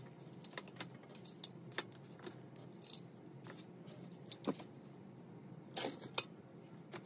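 Scattered small clicks, scrapes and rustles of potting soil mixed with perlite being pushed and pressed by hand around a succulent in a terracotta pot, with a few sharper taps in the second half.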